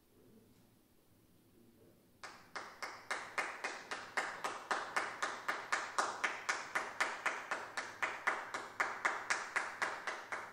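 Steady hand clapping beginning about two seconds in: crisp, evenly spaced claps at about four a second, greeting a performer as he walks on stage.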